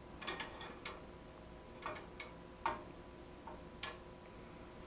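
Faint, irregular clicks of the sliding poise weight being nudged along the notched beam of a balance-beam platform scale while a load is weighed, one click a little louder near the middle.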